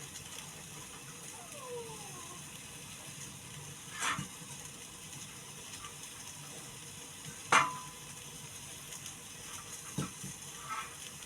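A cooking utensil knocking three times against a pan over a faint steady sizzle of frying, the loudest knock about two-thirds of the way through.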